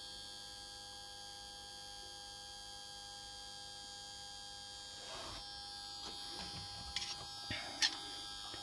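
Faint steady electrical hum with several high whining tones. In the second half come a few soft knocks and rustles as the phone is moved about.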